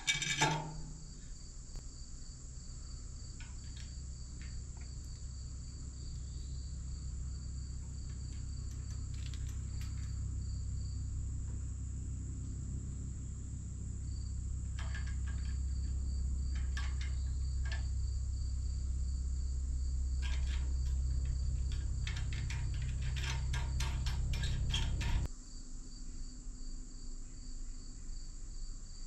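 Insects chirping in a steady, high, pulsing chorus over a low steady hum that cuts off suddenly near the end. Clusters of light metallic clicks come from tightening the LED work light's mounting bracket on the excavator boom.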